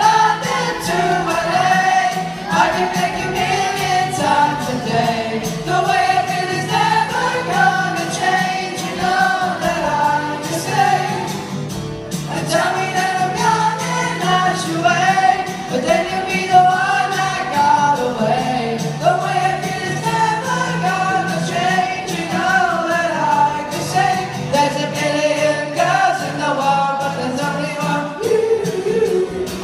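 A school pop band playing live, with several voices singing the melody together over a steady instrumental backing.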